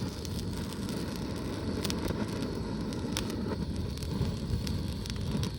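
Wood fire burning in a fire pit: a steady low rush of flame with scattered crackles and pops from the burning wood.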